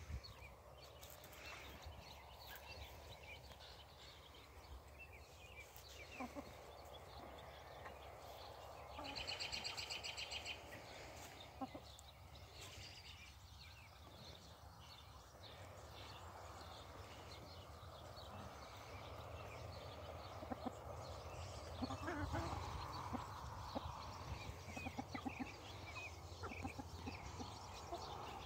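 Chickens feeding, with many soft pecking clicks at watermelon and shredded cabbage over a low, steady rumble. About nine seconds in, a high, rapidly repeating bird call sounds for a second or so.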